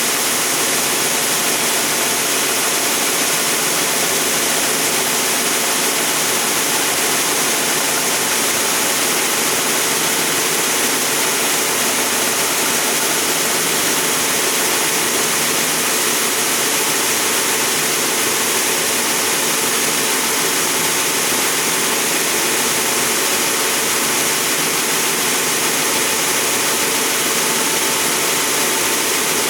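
Timesaver 137-2 HD dual-head wide belt sander running steadily under power: a constant hiss with a faint hum underneath.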